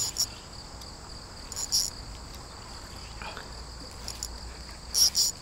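Insects trilling: a steady high-pitched trill, with louder bursts of chirping at the start, nearly two seconds in, and near the end.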